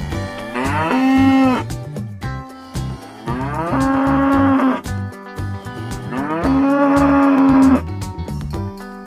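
A cow mooing three times, each long moo rising in pitch and then held steady, over background music.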